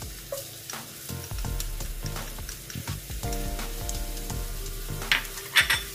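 Freshly added minced garlic sizzling in a little hot cooking oil in a non-stick frying pan, with small crackles and pops throughout.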